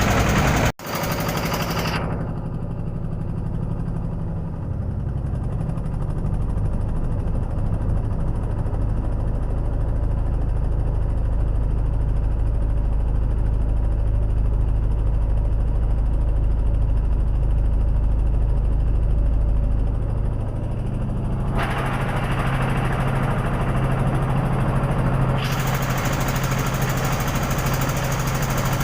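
An engine running steadily with a fast, even chugging. There is a brief drop-out about a second in.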